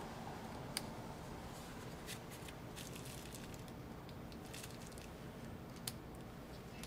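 Faint, scattered small clicks and light handling noise from work on a laptop's internal parts, over a low steady hum.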